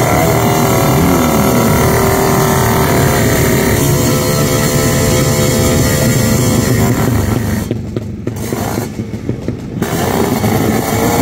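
Drag-racing motorcycle engine revving hard, its pitch sweeping up and down. The revs drop off briefly twice near the end.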